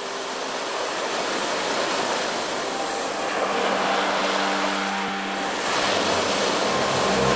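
Sea waves breaking and washing up a pebble beach: a continuous rushing surf that swells slightly louder.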